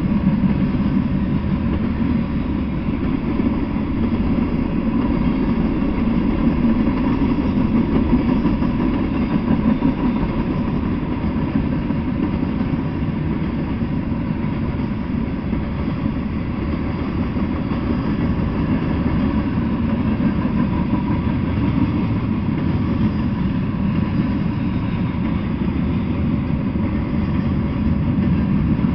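Freight train cars rolling past, a steady rumble of steel wheels on the rails.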